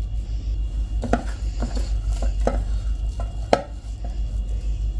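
Several light clicks and taps of kitchen dishes and utensils at irregular spacing, the sharpest about three and a half seconds in, over a steady low hum.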